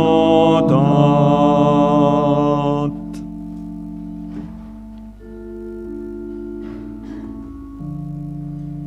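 A congregation singing a Reformed hymn with organ accompaniment; the last held chord ends about three seconds in. The organ then plays soft sustained chords alone, changing every second or two.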